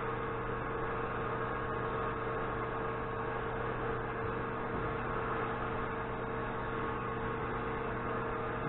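Steady electrical hum with a few fixed tones over an even hiss, unchanging throughout: workshop room tone.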